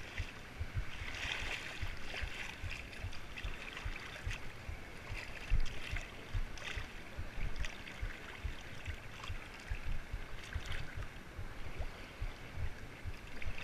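Sea water splashing and lapping against a kayak as it is paddled, with splashy surges of the paddle strokes every few seconds. A low, irregular rumble of wind buffets the microphone throughout.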